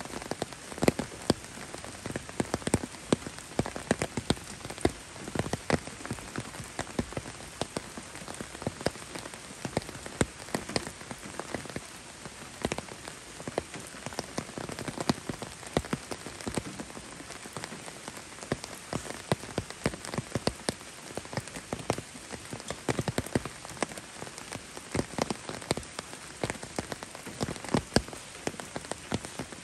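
Steady rain, with many close, sharp raindrop taps landing irregularly over a constant hiss.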